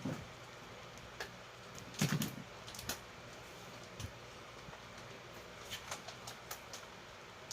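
Scattered knocks and clicks of objects being handled and set down, the loudest cluster about two seconds in, over a steady low hiss.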